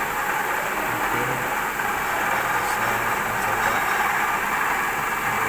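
Kiheung Machinery Works KMU-1.5 S milling machine running with a steady, even noise while face-milling an aluminium block flat.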